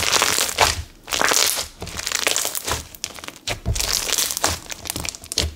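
Clear 'crunch bomb' slime packed with foam flower charms and foam rings being squeezed and folded between the hands, crackling and popping in a series of squeezes about a second apart.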